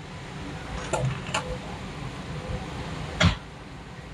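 Steady low hum of 3D printers running, with three short knocks, two close together about a second in and a louder one about three seconds in.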